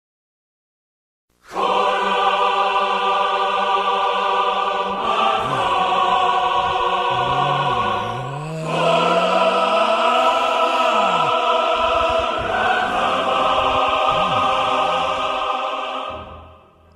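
Choral music: a choir holding full, sustained chords, starting about a second and a half in and fading out near the end.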